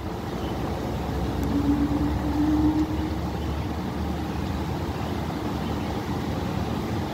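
Distant thunder rumbling low and long, swelling over the first couple of seconds and then rolling on steadily: a slow, soft rumble rather than a sharp clap.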